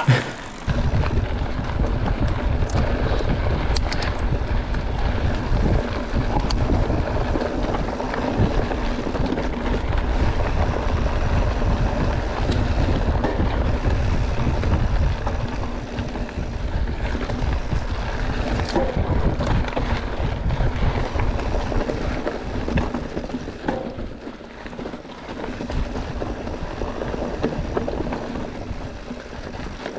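Mountain bike riding fast down a rocky trail: wind buffeting the microphone over the rattle and knocks of the bike and tyres on rock and loose ground.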